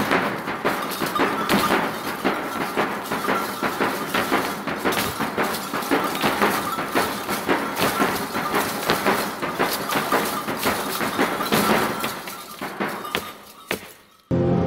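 Live ingoma dance performance: a dense, irregular clatter of drum beats and stomping with crowd noise. It fades away over the last couple of seconds, and a music track cuts in at the very end.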